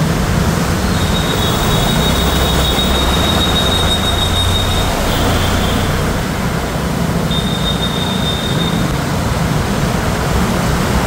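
Traffic moving through a flooded street: engines running and tyres splashing through standing water in a steady wash of noise. A thin, high-pitched squeal sounds about a second in for several seconds, and again briefly later.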